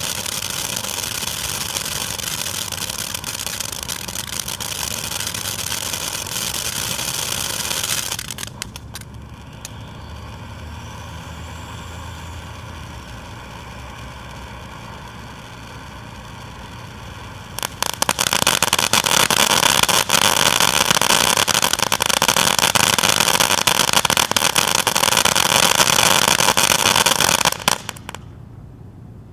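180° fireworks fountain (P3112) spraying sparks with a loud hiss and crackling. About eight seconds in it drops to a quieter hiss, surges louder with dense crackle from about eighteen seconds, then cuts off as the fountain burns out near the end.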